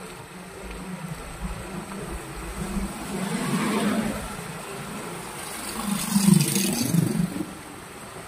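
Road traffic: vehicle engines running with a steady low hum. One vehicle passes with a swelling rush about three and a half seconds in, and a louder one passes around six seconds in.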